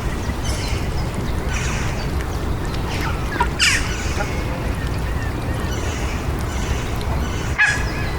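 City park ambience: a steady low rumble of distant city traffic, with birds calling over it. The loudest calls fall in pitch, about three and a half seconds in and again near the end.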